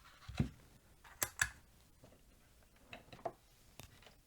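A few short clicks and knocks of handling at the workbench, about five in all, the loudest a pair a little over a second in.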